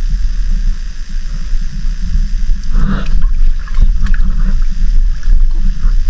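Sea water sloshing and churning around a GoPro held at the water's surface, a heavy low rumble with a louder splash about three seconds in.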